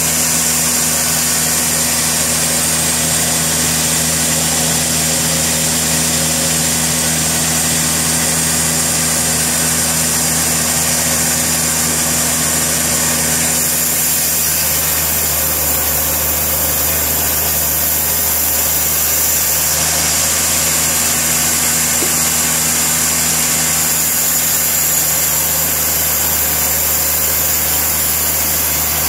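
A sawmill's engine running steadily, with its tone changing slightly about halfway through.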